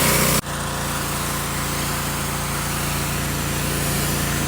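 Pressure washer running steadily: a motor hum under the hiss of the water spray. A sudden break comes about half a second in, and then it carries on slightly quieter.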